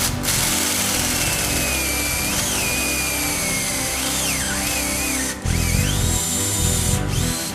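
Electric drill running under load as it drills out a seized glow plug, its whine wandering up and down in pitch as the load changes, with a brief break about five and a half seconds in. Background music plays underneath.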